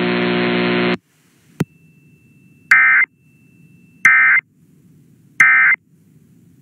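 A steady buzz cuts off about a second in, followed by a click. Then come three short EAS/SAME digital data bursts about 1.3 s apart: the end-of-message code of an emergency alert on NOAA Weather Radio. Right at the end a longer data burst begins, the start of the next alert's SAME header.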